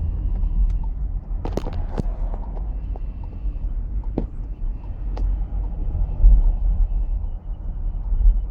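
2019 Volkswagen Jetta under a steady low road rumble, with short sharp squeaks: a cluster about one and a half to two seconds in, then single ones near four and five seconds. This is the squeak that a dealership repair has not cured.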